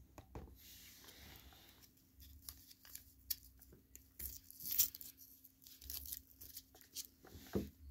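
A Starburst fruit-chews pack's wrapper crinkling and tearing as it is pulled open by hand, in irregular crackles that are loudest a little over halfway through and again near the end.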